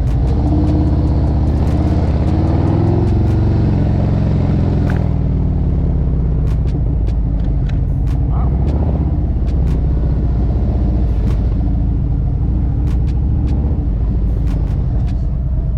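Harley-Davidson CVO motorcycle's V-twin engine running as the bike pulls away and rides slowly. Its pitch rises and wavers over the first few seconds, then settles to a steady low running note.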